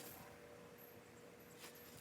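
Near silence: a faint steady hum, with a couple of faint clicks near the end.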